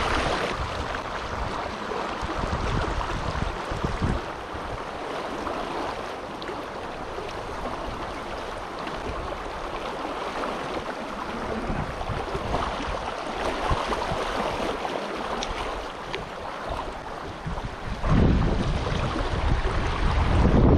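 River water rushing steadily over rapids. Near the end, wind buffets the microphone with a loud low rumble.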